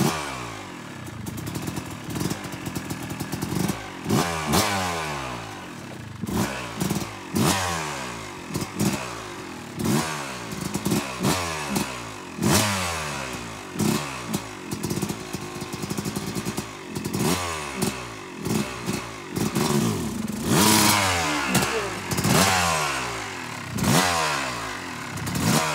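Yamaha 250 two-stroke dirt bike engine revved in short, sharp throttle blips, about one a second, each rising and then falling away, as it is ridden slowly over logs and rough ground. Occasional knocks and clatter from the bike hitting obstacles.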